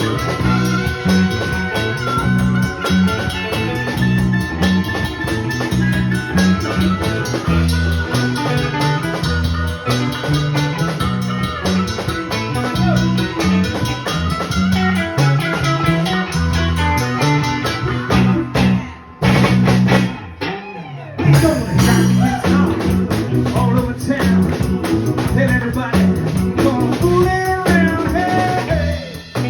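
Live blues band playing, with guitar, a low walking bass line and drum kit. The band drops out briefly about two-thirds of the way through, then comes back in.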